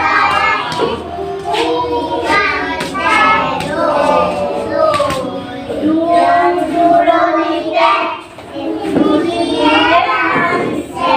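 A group of young children singing a song together, with some notes held.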